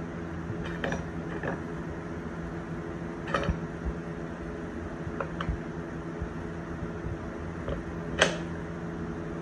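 Steel pipe clamps being slid and tightened on a glued-up board: scattered short clicks and creaks from the clamp jaws and screws, the sharpest about eight seconds in, over a steady low hum.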